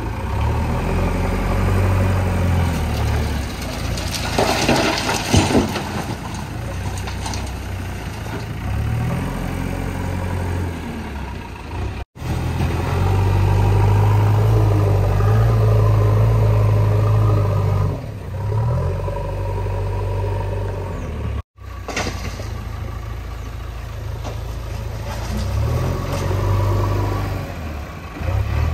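Diesel engines of a JCB 3DX backhoe loader and tractors working, revving up and down again and again under load, with a burst of rattling and scraping about five seconds in. The sound cuts out for an instant twice.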